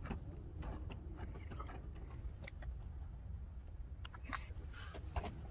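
A person eating sushi: chewing, with small clicks of wooden chopsticks against a plastic food tray. Under it runs a low steady rumble, and there is a short rustle a little after four seconds in.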